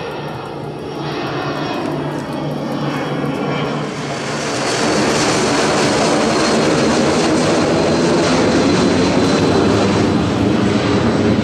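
An Avro RJ85 (BAe 146) airliner's four Honeywell LF507 turbofan engines roar as it passes low overhead. The sound swells about four seconds in, and a thin high whine over the roar slowly drops in pitch as the jet moves away.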